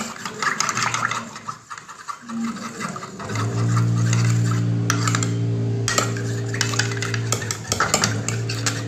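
A metal spoon stirring a thin sauce of soy sauce, ketchup, cornflour and water in a bowl, with quick repeated clinks of the spoon against the bowl's sides. About three seconds in, a steady low hum starts and stays under the clinks, dropping out briefly near the end.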